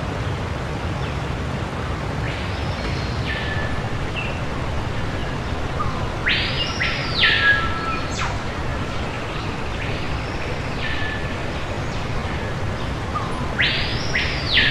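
A high whistling sound that sweeps up, holds briefly and drops back down, repeating every few seconds (twice in quick succession about six seconds in, again near the end) over a steady hiss.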